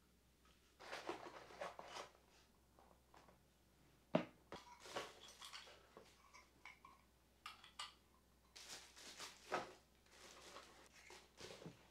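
Faint handling sounds of unpacking: rustling and crinkling of a plastic bag and cardboard packaging, in several short spells, with a few sharp clicks and knocks as accessories are lifted out of their box trays.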